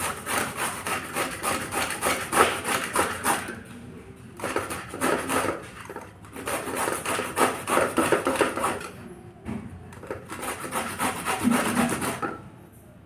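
Bottle gourd being grated on a flat metal grater: rapid grating strokes in four bursts with short pauses between.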